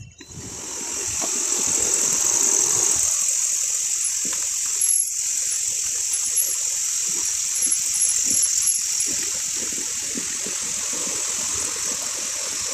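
A steady, high-pitched chorus of night insects, with faint higher chirps over it and scattered low knocks and crunches underneath.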